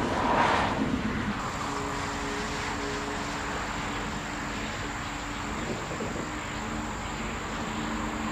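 A vehicle passing with a brief whoosh about half a second in, then a steady low engine hum under outdoor background noise.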